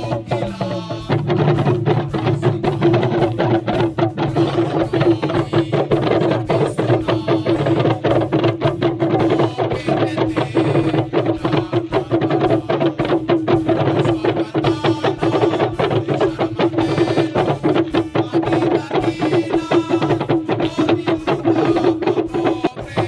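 Group of small hand drums, Timorese babadok, beaten together in a fast, dense, unbroken rhythm.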